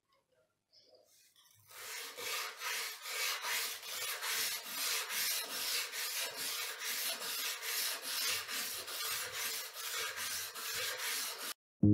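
A hand file worked back and forth across the edge of a steel axe head: even filing strokes at about two a second. They start about two seconds in and stop abruptly just before the end.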